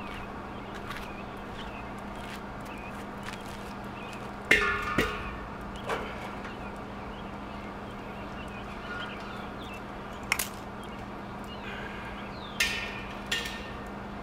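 A few short knocks and clanks as a propane cylinder and its regulator fitting are handled at a portable griddle, over a steady low hum. One clank comes about four and a half seconds in, with a short ring, and a pair of clicks comes near the end.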